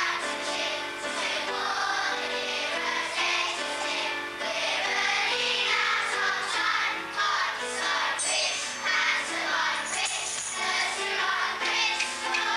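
Music with singing voices, children's voices among them, carrying on steadily throughout.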